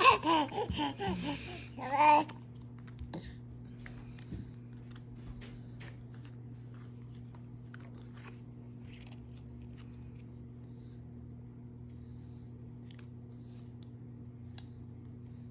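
A baby babbling in short vocal sounds that slide up and down in pitch for about two seconds, then stopping; after that only a steady low hum with a few faint small clicks.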